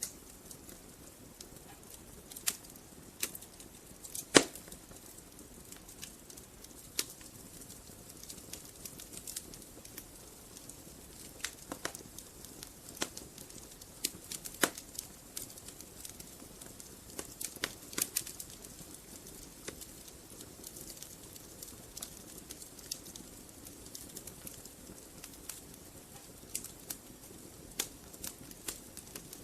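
Wood fire burning in a fireplace: irregular crackles and sharp pops over a soft steady hiss, with the loudest pop about four seconds in.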